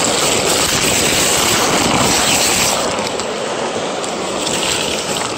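Steady rushing of water pouring through a canal culvert, easing a little about halfway through.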